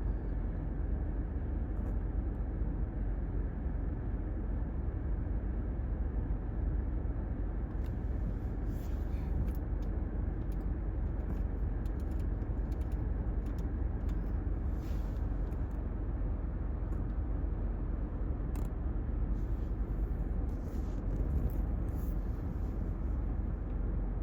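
Steady low rumble of a car heard from inside the cabin, with a few faint ticks from about eight seconds in.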